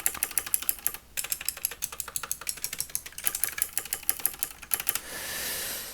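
Skylion H87 mechanical keyboard with blue clicky switches being typed on fast, a rapid run of light, clicky keystrokes with a brief pause about a second in. The click has a cheap, light feel with some extra rattle noise. A short hiss comes near the end.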